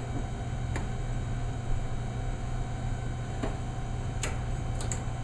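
A steady low hum with a few short, sharp clicks scattered through it, most of them in the second half.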